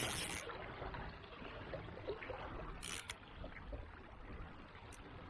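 Kayak paddle strokes in the water: two short splashes about three seconds apart, over faint water lapping around the hull.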